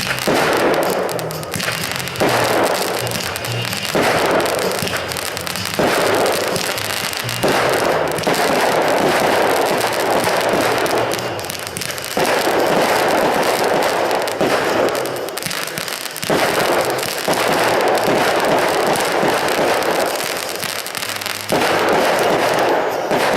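Fireworks going off in dense, crackling waves that surge in anew every few seconds, with music playing alongside.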